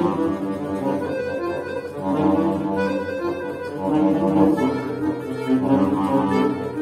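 Solo button accordion (bayan) playing classical music: sustained chords under a moving melody, swelling and easing in loudness several times.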